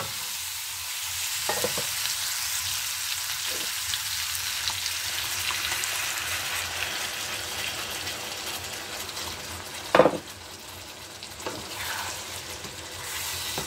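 Chicken pieces sizzling steadily in hot oil in a frying pan. There are a few knocks against the pan, a sharp one about ten seconds in, after which the sizzling is somewhat quieter.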